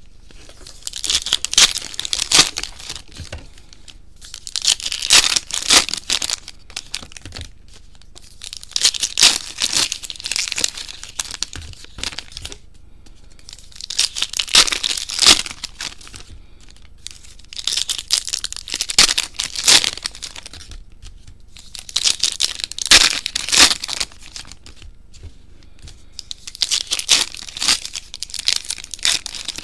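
Trading-card pack wrappers being torn open and crinkled, one pack after another: about seven bursts of crinkling and tearing, one roughly every four seconds.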